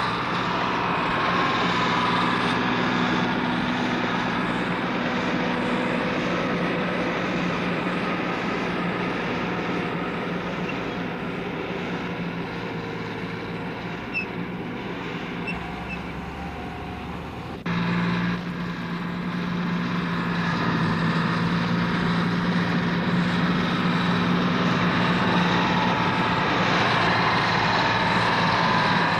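Steady mechanical hum and whine of a rescue craft's engine sound effect. It cuts abruptly to a louder, steady hum about 18 seconds in.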